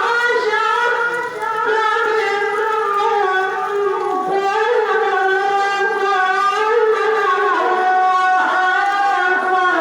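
A Qur'an reciter chanting in a high register, long held notes ornamented with wavering, melismatic turns.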